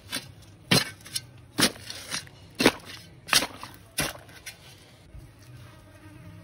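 A spade being driven into soil. There are about six sharp strikes, roughly one every 0.7 s, and they stop about four seconds in.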